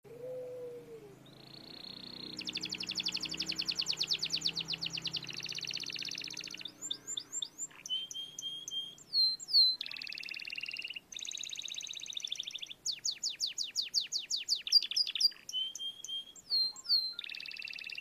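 Domestic canary singing a long, varied song. Fast rattling trills alternate with quick down-sweeping whistles and held buzzy notes, one phrase after another with only brief breaks.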